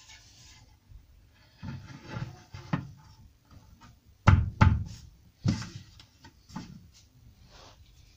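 Wooden desk leg knocking against the wall and floor as it is handled into position: a few light knocks, then two loud knocks in quick succession about four seconds in, and a couple more after.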